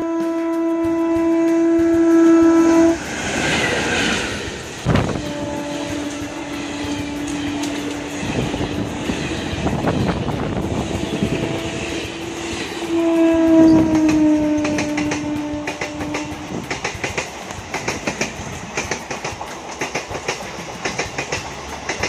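Electric locomotive's air horn sounding long steady blasts as a passenger train approaches and passes at speed, the blast near the middle dropping in pitch as the train goes by. After that the coaches' wheels click rhythmically over the rail joints.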